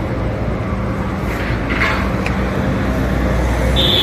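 Motor vehicle engine running, a steady low drone that grows slightly louder, with a few light clicks midway and two short high-pitched chirps near the end.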